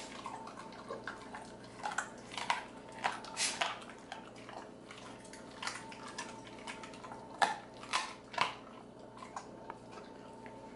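An XL American Bully eating raw meat and chicken from a stainless steel bowl: irregular wet chewing and smacking, with clinks of teeth and food against the bowl. The loudest smacks come about seven and a half to eight and a half seconds in.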